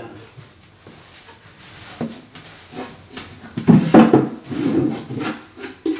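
Wooden nightstand being handled: knocks and sliding scrapes of wood on wood, like a drawer moving in its frame, with the loudest thumps a little before the middle.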